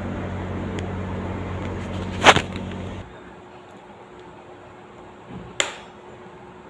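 Sharp crunching bites into a hard grey block held in the mouth: one loud crack about two seconds in and another, with a small crack just before it, near the end. A steady hum sounds under the first bite and stops abruptly about three seconds in.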